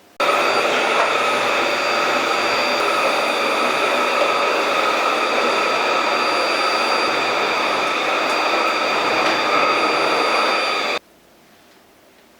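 An electric household appliance motor running loudly and steadily, a whooshing whir with a thin whine over it, starting suddenly and cutting off suddenly near the end.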